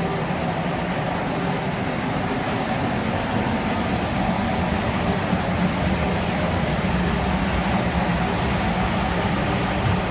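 Steady air noise of a paint spray booth's ventilation fans, an even rushing sound with a constant low hum underneath.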